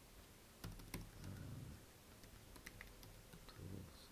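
Faint typing on a computer keyboard: scattered key clicks starting about half a second in.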